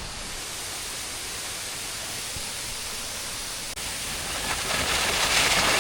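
Waterfall's rushing water: a steady hiss that grows louder and brighter about four seconds in.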